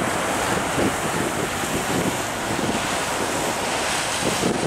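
Airbus A320-232's IAE V2500 turbofans at take-off thrust: a steady, rushing jet noise from an aircraft rolling away down the runway. Wind buffets the microphone in irregular low gusts.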